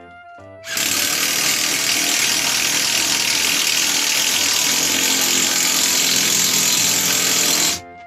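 Cordless drill running under load into a wooden board, a loud steady run of about seven seconds that starts about a second in and stops sharply just before the end.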